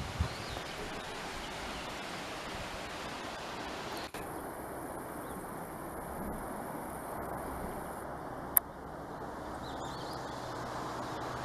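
Steady outdoor rustle of wind in the trees, with one sharp click about eight and a half seconds in.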